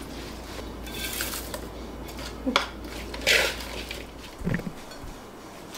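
Wooden salad servers tossing dressed lettuce in a bamboo bowl: soft rustling of leaves with a few sharp clacks of wood against wood, and a couple of dull knocks near the end.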